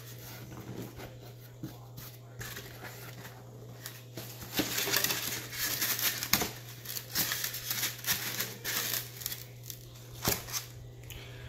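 A cardboard gun box being opened and the plastic wrapping and packing inside it crinkling as they are handled. The crinkling is densest from about four and a half to nine seconds in, with a few light knocks and taps among it.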